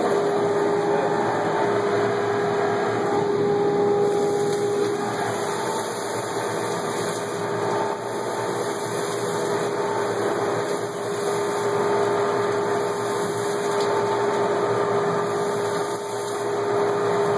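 Shop dust collection system running at full speed: a steady whine over a rush of air as planer shavings are pulled through the dust separator and out the homemade rotary airlock.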